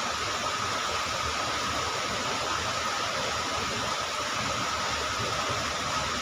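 Steady rushing noise of a swollen, fast-flowing river in flood, even and unbroken throughout.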